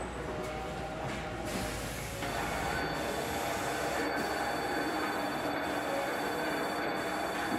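Airless paint sprayer spraying primer onto a metal roof: a strong hiss of atomised paint starts about a second and a half in, joined shortly after by a steady whine, and the hiss dips briefly about once a second.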